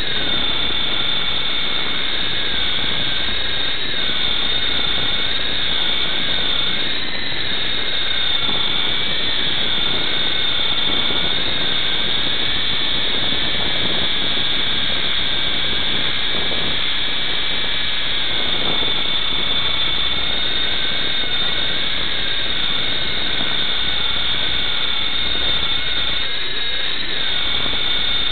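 Blade MD520 micro RC helicopter in flight: a steady high-pitched electric motor and rotor whine, with its lower tones wavering up and down as the throttle changes.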